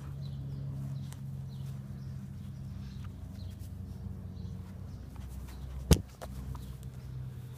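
A dog mouthing and chewing an old sneaker, with faint scattered clicks and rustles over a steady low hum. About six seconds in, one loud, sharp knock as the dog bumps into the phone that is recording.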